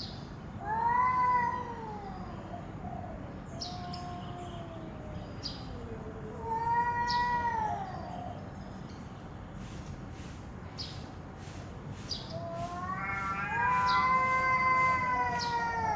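Domestic cat yowling: three long, drawn-out yowls that rise and fall in pitch, the last one starting about three-quarters of the way in and lasting about three seconds.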